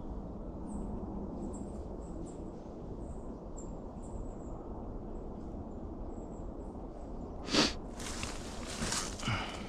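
Quiet woodland background: a steady low rumble with faint high chirps. About seven and a half seconds in comes one sudden sharp sound, the loudest thing here, followed by a second or two of rustling noise.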